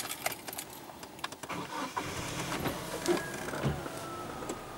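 Sharp clicks and knocks in the cab, then a Great Wall vehicle's engine starting about two seconds in and running on, with a faint whine that slowly falls in pitch.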